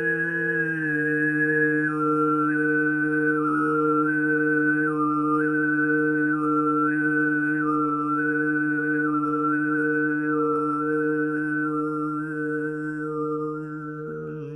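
Overtone throat singing: a held low drone with a whistling overtone melody that steps up and down high above it, and the voice cuts off at the very end. Under it a steady ringing tone pulses about twice a second.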